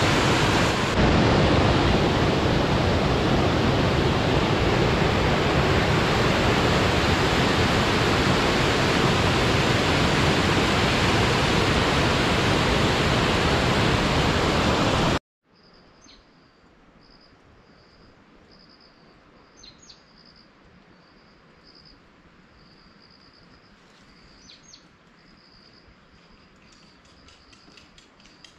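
Waterfall: falling water rushing loudly and steadily, which stops abruptly about halfway through. Then a much quieter natural setting with a high, repeated chirping and a few short bird calls.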